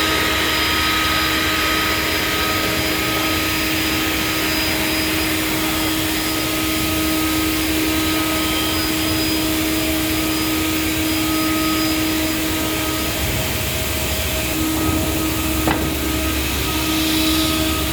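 CNC wood router running and cutting wood: the spindle gives a steady whine over a constant hiss, with a single brief click near the end.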